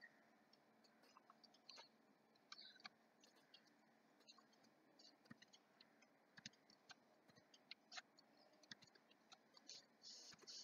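Faint, irregular computer mouse clicks against near silence, a few sharper ones near the end.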